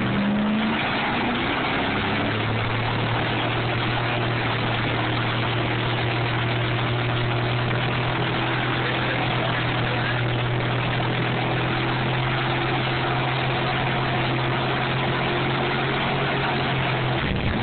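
Car doing a stationary burnout: the engine climbs in the first second, then is held at steady high revs while the spinning tyre scrubs on the pavement with a constant harsh hiss. It cuts off suddenly near the end, as the tyre bursts with a bang like a gunshot.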